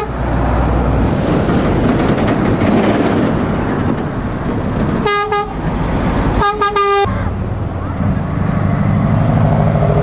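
Heavy truck engine running as a truck drives by, with two short blasts of a truck horn about five and six and a half seconds in.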